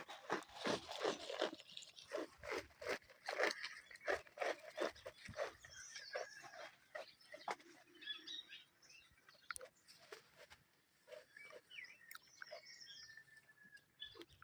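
Farm animal sounds: a quick run of short repeated sounds, about three a second, that fades about six seconds in to fainter scattered ones.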